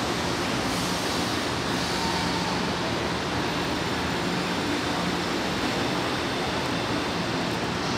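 São Paulo Metro Line 3 train pulling away from the station platform after its doors close: a steady rumble of the train with a faint hum.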